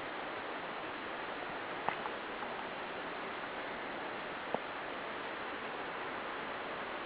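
Steady rush of water from a mountain stream or waterfall, with two short sharp knocks about two seconds and four and a half seconds in.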